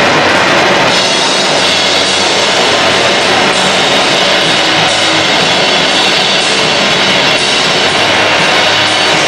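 Live noisecore set: a loud, dense, unbroken wall of distorted noise through a PA, filling the whole range from low rumble to hiss.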